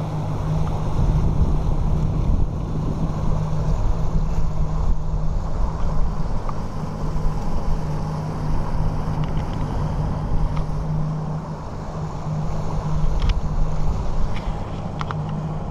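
Boat's outboard motor running steadily under way, a constant low hum, with strong wind buffeting the microphone.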